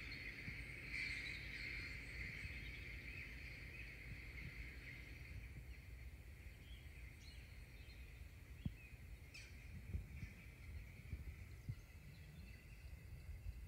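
Faint background ambience: a steady high-pitched drone that slowly fades, with a few soft clicks partway through.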